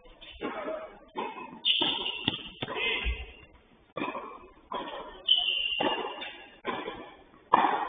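Tennis rally: sharp knocks of racket strikes and ball bounces on the court, about one every half second to second, each ringing out briefly, with two short high squeaks.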